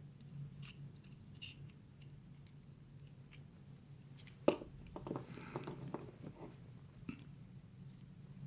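A lock pick working the pins of a pin-tumbler lock: scattered small metallic clicks and rattles, with one sharper click about four and a half seconds in followed by a quick run of clicks.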